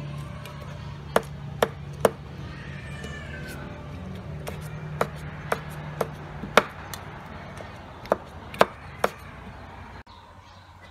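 Metal ladle clinking against a stainless-steel bowl as fish pieces in liquid are scooped: three quick sharp clinks at a time, three times over, over a steady low hum.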